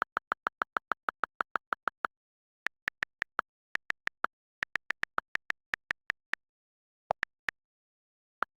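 iPhone silent-mode switch sound: a short electronic tick played over and over, about six a second, in several runs with brief gaps. The first, longer run is lower in pitch than the later runs.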